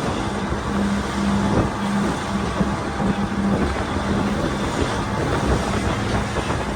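Charter fishing boat running at cruising speed: a steady engine drone, with a low hum that fades in and out, over rushing water and wind noise.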